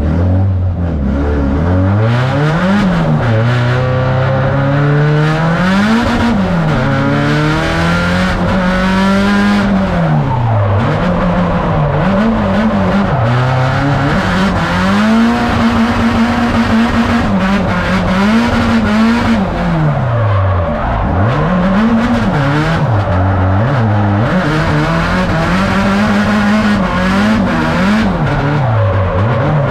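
Nissan 180SX drift car's engine revved hard through a drift run, its pitch climbing and dropping again and again and repeatedly held flat at the top, with tyres squealing.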